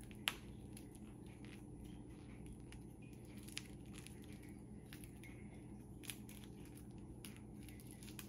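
Thin plastic ice-pop bag filled with coconut mix being twisted tight by hand to squeeze out the air, giving faint crinkling and scattered small clicks, the sharpest about a third of a second in. A low steady hum runs underneath.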